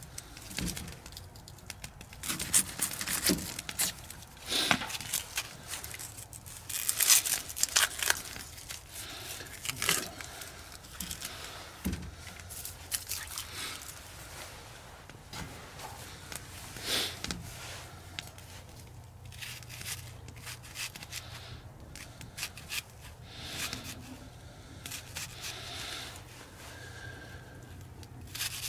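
Dry onion skin crackling and tearing as an onion is peeled and trimmed with a folding pocketknife, with scattered sharp clicks and scrapes of the blade, busiest in the first half.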